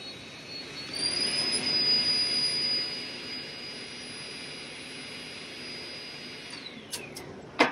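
Hydraulic guided-bend tester's pump running with a steady high whine that rises in pitch and gets louder about a second in as the ram bends a weld test coupon. The whine winds down in pitch near the end, followed by a few clicks and one sharp metal knock.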